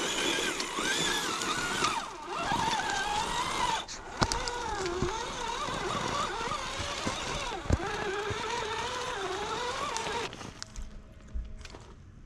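RC crawler's electric motor and geared drivetrain whining, the pitch rising and falling with the throttle, with two sharp knocks; it stops shortly before the end.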